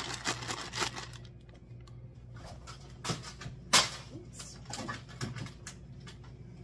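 Plastic zip-top bags crinkling as they are pushed into an insulated lunch bag, then scattered knocks and clicks of kitchen handling, the sharpest about four seconds in.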